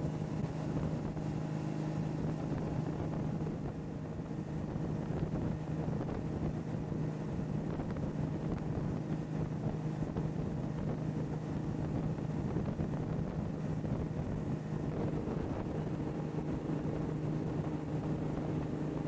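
Motorboat engine running steadily as the boat moves along, with wind buffeting the microphone.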